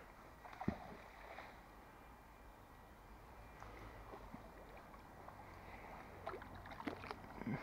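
Faint water movement and rope handling as a magnet-fishing magnet is hauled in through canal water. A single sharp knock comes about a second in, and small knocks and rustles grow more frequent near the end.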